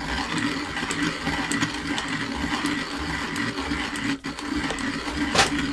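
Fiorenzato Pietro hand grinder's flat burrs grinding coffee beans at an espresso setting as the handle is cranked: a continuous, very noisy grinding. It breaks off briefly about four seconds in, gives a sharp click a little after five seconds, and stops just before the end.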